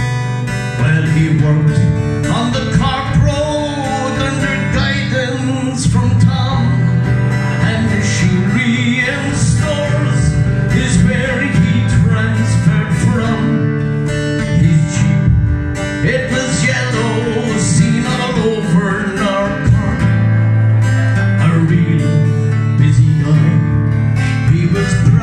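Live acoustic guitar strummed in a steady rhythm, with a man singing a ballad over it into a microphone.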